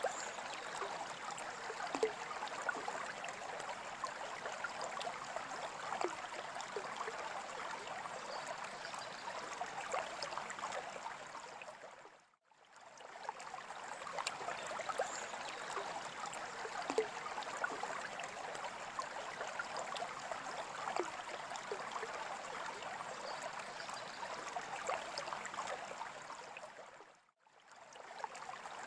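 Steady trickling and bubbling water in a freshwater aquarium, with small gurgling blips. The sound fades out briefly twice, about fifteen seconds apart, and the same stretch repeats like a loop.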